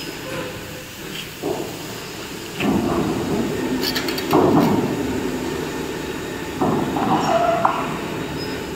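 Overhead crane running as it lifts a load of steel I-beams, in three mechanical surges, with sharp metallic clinks of steel on steel about four seconds in.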